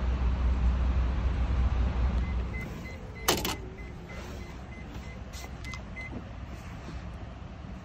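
A car's power sliding door working: a low motor rumble, then a clunk about three seconds in, with a short electronic warning beep repeating for a few seconds.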